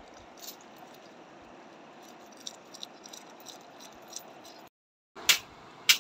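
Faint steady rush of river water with scattered light clicks. Near the end the sound drops out for a moment, then two sharp clicks follow.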